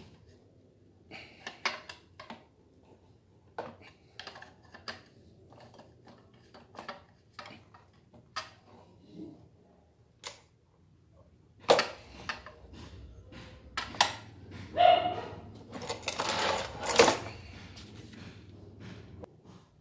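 Scattered small clicks and taps of metal and plastic parts being handled on a Honda UMR435T backpack brush cutter's engine. From about twelve seconds in come louder knocks and scraping, with the loudest clatter just before the end.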